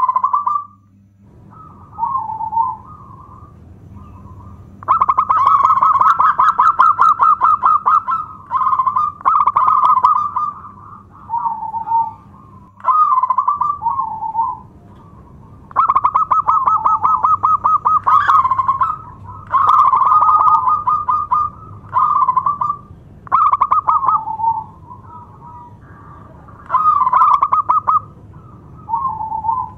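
Zebra dove (perkutut) cooing: phrase after phrase of rapid, trilled, pulsing coos, each a second or two long, with short pauses between. A few phrases run longer, about three seconds.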